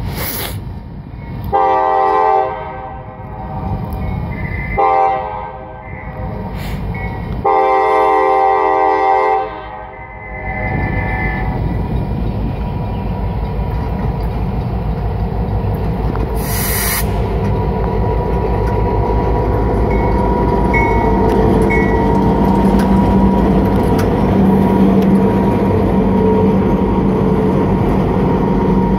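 CSX GP38-2 diesel locomotive sounding its horn in three blasts, the first two about a second each and the last about two seconds long. Then its EMD 16-cylinder 645 two-stroke diesel runs steadily, growing louder as the locomotive draws near.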